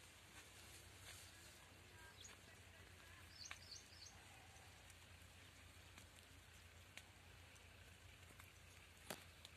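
Near silence: faint outdoor field ambience, with a brief run of bird chirps about a third of the way in and a couple of faint clicks near the end.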